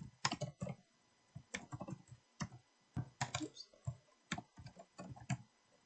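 Typing on a computer keyboard: irregular clusters of keystrokes with short pauses between them.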